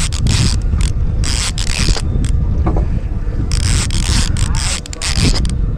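Fishing reel clicker ratcheting in irregular spurts as a hooked fish pulls line, over low wind rumble on the microphone.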